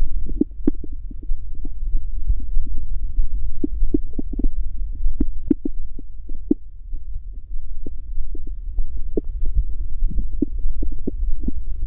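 Human stomach growling and gurgling: a steady low rumble with many short, irregular gurgles and pops throughout.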